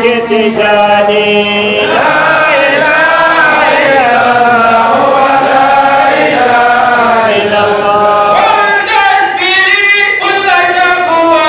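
A man chanting Islamic devotional verse into a handheld microphone, in long drawn-out notes that glide up and down without a pause.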